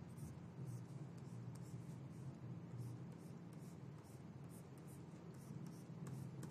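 Pen stylus scratching over a drawing tablet in short quick strokes, about two or three a second, as diagonal hatch lines are drawn. A faint steady low hum runs underneath.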